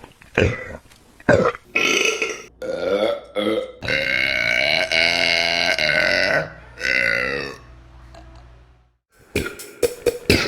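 Women burping loudly: several short burps in quick succession, then one long drawn-out belch lasting about two and a half seconds, followed by a shorter burp.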